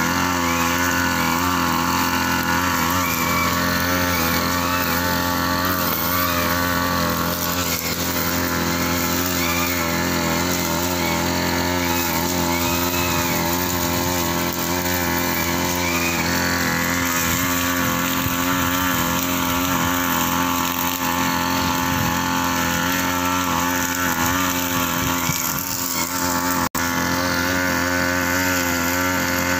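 Backpack brush cutter engine running steadily as it cuts grass, its pitch wavering slightly with the load, with a momentary break near the end.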